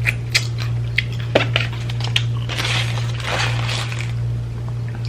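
Close-up crunching and chewing of crispy fast food: a few sharp crunches, then a longer crunchy stretch from about two and a half seconds in. A steady low hum runs underneath.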